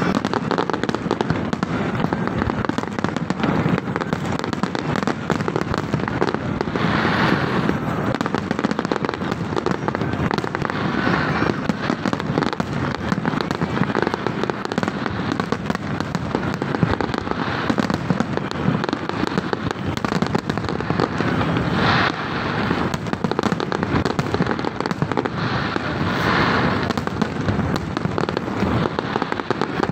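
Large aerial fireworks display: a dense, continuous barrage of shell bursts and crackle with no let-up, and a few brief swells of brighter crackling.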